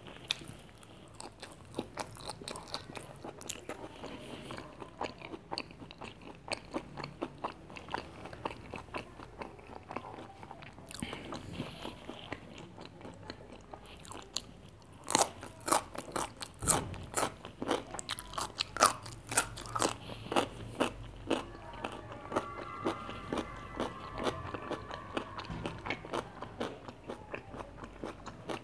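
Close-miked chewing and crunching of a mouthful of crispy fried chicken burger: steady wet chewing with many sharp crunches, louder and more frequent around the middle.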